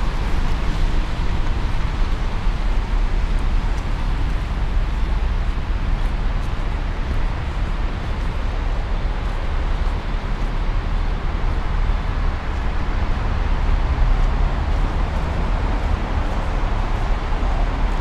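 Steady noise of road traffic on a busy city street, cars running past with a constant low rumble.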